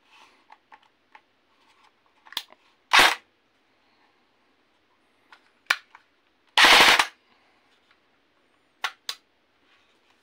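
CYMA CM.041K electric airsoft gun (MP5K-style AEG): sharp clicks as the fire selector is worked, then the gearbox cycles in a short burst about three seconds in and a longer, louder burst of about half a second near seven seconds, followed by two more clicks.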